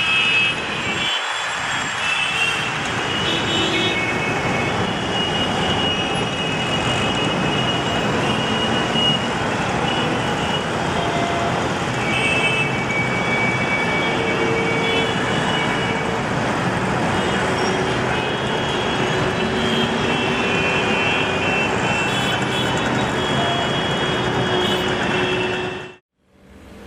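Busy city street traffic: a dense, steady wash of engines and tyre noise from cars, trucks and buses, with short high tones coming and going over it. It cuts off abruptly just before the end.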